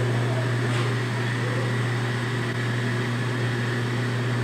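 A steady low hum under an even hiss, unchanging throughout, with a faint tick about a second in.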